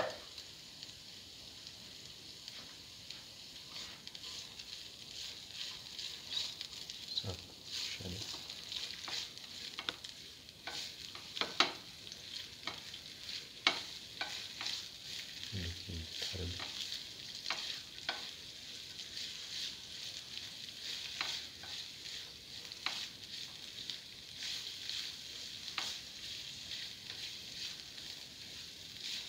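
Sliced shallots and ginger sizzling in hot oil in a pan, with a spatula scraping and tapping against the pan as they are stirred. A few sharper knocks come along the way, the loudest around the middle.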